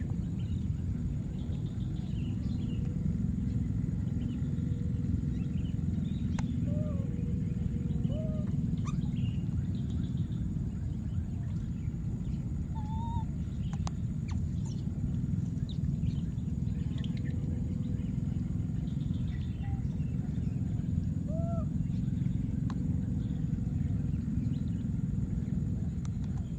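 Steady low outdoor rumble with short chirping animal calls scattered every few seconds.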